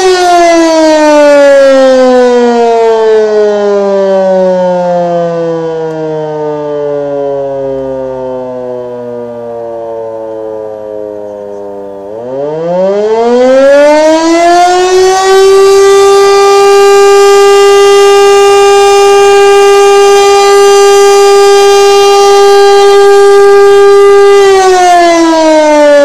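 Electric motor siren, which the uploader takes for an Elektror L141, sounding the German fire alarm signal. Its pitch falls slowly for about twelve seconds as the rotor coasts down. About halfway through it spins back up into a steady, held wail for about ten seconds, then starts winding down again near the end.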